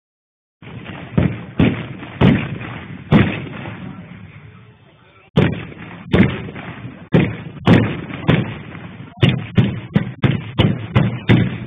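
Carbide cannons, milk churns with footballs in their mouths, going off one after another: some fifteen loud bangs, each with a short echoing tail, coming faster in the second half.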